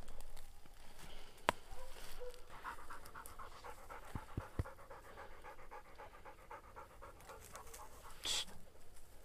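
Hunting dog panting in quick, steady breaths, with a sharp click about a second and a half in, two more around the middle, and a short rustling hiss near the end.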